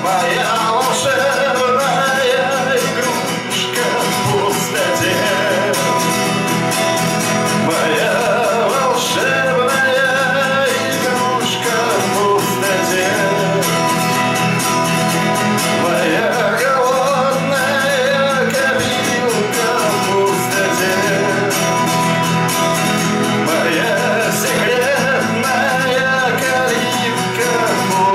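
Acoustic guitar strummed steadily while a man sings over it with long, wavering held notes, a live solo song performance through the PA.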